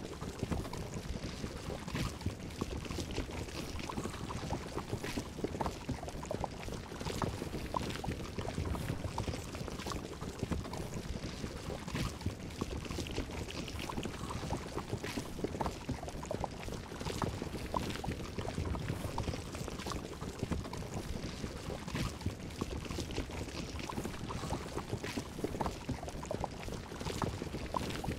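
Steady bubbling, gurgling liquid with many small irregular pops.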